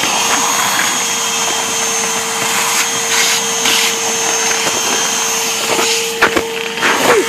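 Dirt Devil vacuum cleaner running steadily while sucking up snow: a constant motor whine over the rush of air. A few knocks come near the end, and the whine briefly dips in pitch.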